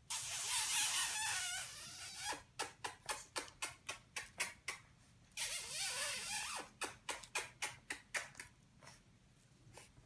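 French bulldog puppy snorting and snuffling close up: two long, rough snorts, each followed by a run of quick short snuffles about three to four a second.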